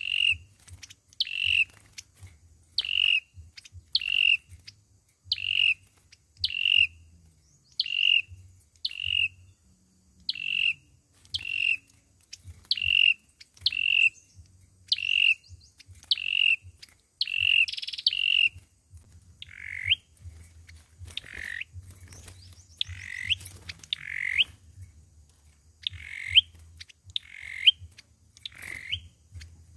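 Sâu dừa bird calling, the kind of song that Vietnamese bird trappers play as a lure: a long run of short, sharp repeated notes about one a second. About two-thirds of the way through, the notes turn slightly lower and sweeping, still spaced about a second apart.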